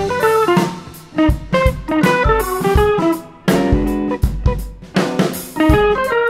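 Instrumental music: a plucked guitar melody over a drum kit with kick and snare hits.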